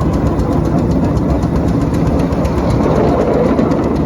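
Miniature live-steam railway train running at speed, heard from a passenger car: a steady, loud rumble of the wheels on the track with a fast, even ticking over it.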